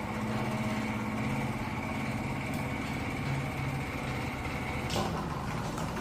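Small electric motor running steadily, with a low hum and a high whine, and a brief click about five seconds in.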